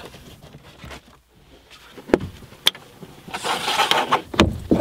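Handling noises in a vehicle cab: two sharp clicks a little apart, a short rustle, then two thumps near the end.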